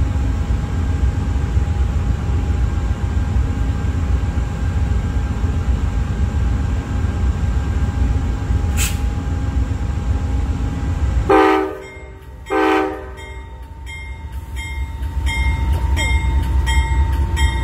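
Amtrak GE Genesis diesel locomotive idling with a steady engine rumble. About eleven seconds in it sounds two short horn blasts, the signal that it is about to move off, and then its bell rings about twice a second.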